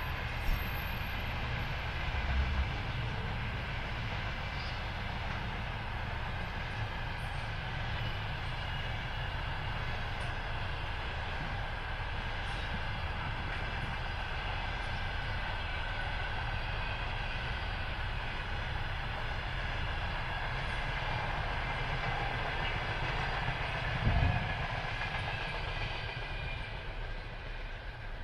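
Container freight train rolling past steadily, with a few short louder knocks, the loudest about 24 seconds in.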